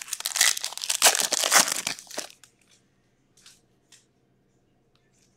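Foil wrapper of a hockey card pack torn open and crinkled for about two seconds, then a few faint clicks as the cards are handled.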